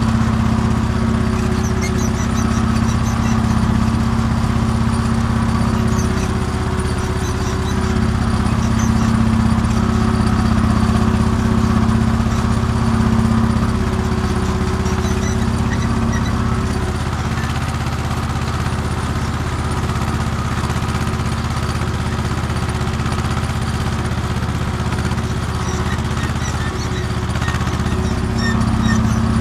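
Small farm tractor's engine running steadily under load while pulling a ridging plough through soil, heard from the driver's seat close to its upright exhaust. The tone shifts slightly about halfway through.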